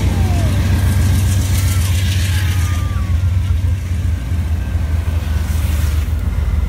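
Diesel train passing close by: a steady, loud low engine rumble, with a rattling hiss on top for a couple of seconds starting about a second in.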